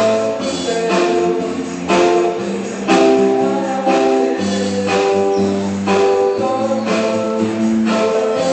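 Music from a hired live band (conjunto) playing a tune with a steady beat.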